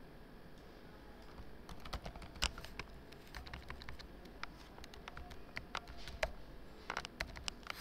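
Typing on a computer keyboard: irregular keystrokes, sparse for the first second and a half, then in short quick flurries.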